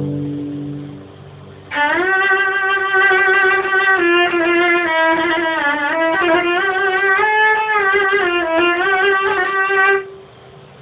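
Solo cello: a low note dies away, then about two seconds in a slow melody begins high on the instrument, long bowed notes with vibrato, which breaks off near the end.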